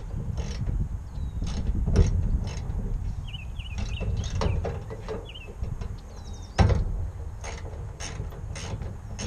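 Irregular metal clicks and clanks of a hand tool working fasteners on the sheet-metal hood and radiator surround of an Allis-Chalmers D17 tractor, with one louder clank about two-thirds of the way in. Wind rumbles on the microphone throughout.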